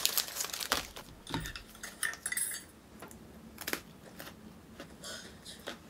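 Crinkly plastic snack wrapper being handled and opened: a dense run of sharp crackles and rustles in the first second, then scattered crackles and a soft knock on the table.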